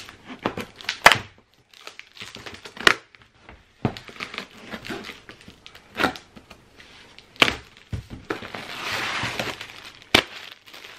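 Scissors cutting through the packing tape and cardboard of a shipping box, with about half a dozen sharp snaps and some scraping. Near the end, clear plastic wrapping crinkles as a bagged plush toy is pulled out.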